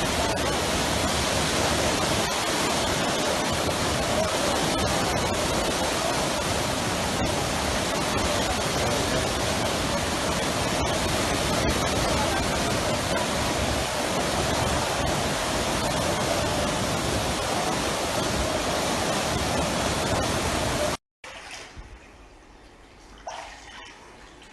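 Floodwater rushing past, a loud steady wash of water noise that cuts off abruptly about 21 seconds in, leaving a much quieter room with a few faint knocks.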